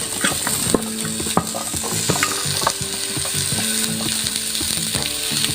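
Bitter gourd frying in hot oil in a kadai, sizzling steadily, with a spatula knocking and scraping against the pan as the vegetables are stirred.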